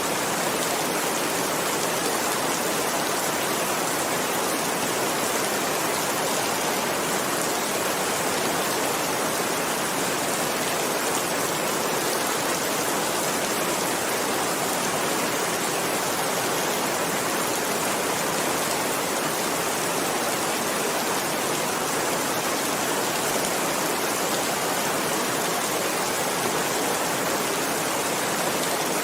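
Heavy rain falling, a steady even hiss with no single drops, thunder or changes standing out.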